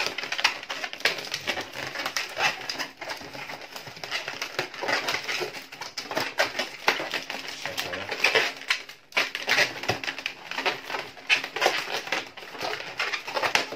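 Long latex modelling balloons being twisted and wrapped by hand, with continuous rubbery squeaking and crackling as the inflated latex rubs and twists against itself.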